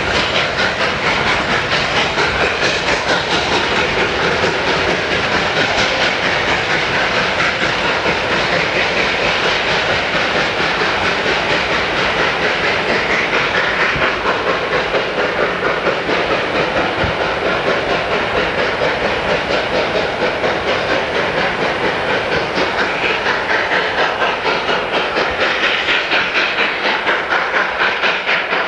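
Narrow-gauge steam train hauled by K-36 locomotive 487 running steadily, with a continuous loud, rhythmic clatter.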